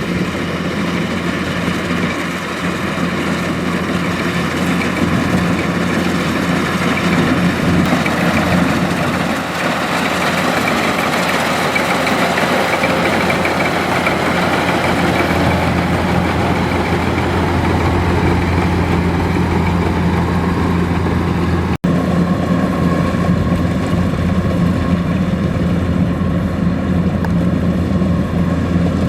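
Kubota DC-105X rice combine harvester running steadily, a deep engine hum under a broad mechanical noise. The sound drops out for an instant about three-quarters of the way through.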